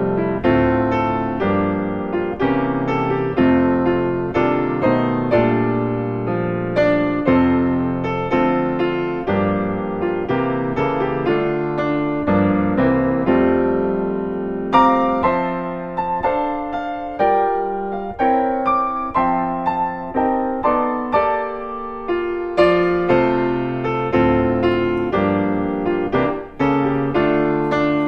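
Background piano music: a gentle melody of struck notes.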